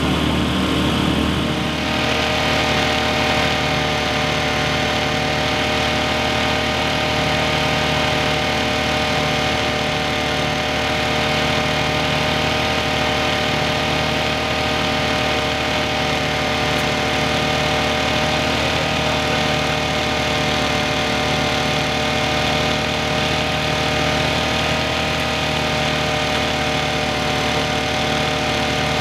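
Engine running steadily at a constant speed, a continuous drone made of several steady tones; its sound shifts slightly about two seconds in.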